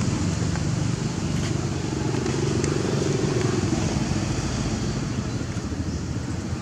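A motor vehicle engine running, a steady low rumble whose pitch rises and falls slightly around the middle.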